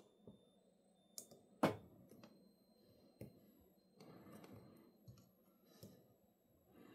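Handheld two-probe battery spot welder firing onto nickel strip over 18650 cell terminals: a few sharp clicks spread over several seconds, the loudest about one and a half seconds in.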